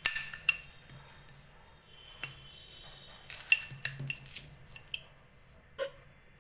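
Kitchen knife and dishes clinking and tapping with a short metallic ring as raw mango is cut into small pieces. The strongest clinks come at the start and in a quick cluster about three and a half seconds in.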